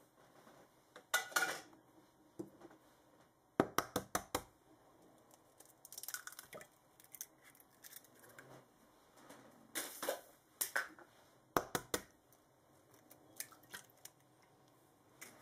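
Sharp taps and clinks against a glass mixing bowl in several short clusters, one of them a quick run of about half a dozen strikes, as eggs are added to buttermilk for pancake batter.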